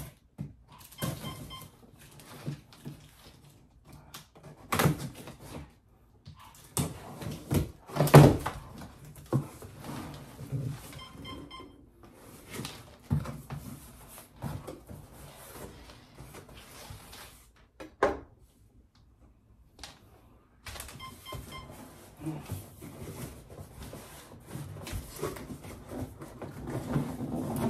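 Large cardboard shipping box being worked open by hand: irregular scraping, rustling and knocks against the cardboard, with one loud thump about eight seconds in and a brief lull about two-thirds through.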